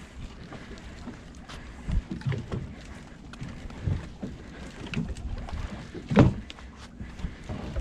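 Small fishing boat rocking on the sea, with water sloshing against the hull and irregular low knocks and thumps on board, the loudest about six seconds in.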